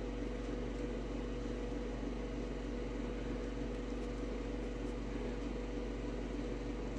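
Steady machine hum made of several constant tones over a faint hiss, with a couple of faint ticks about four and five seconds in.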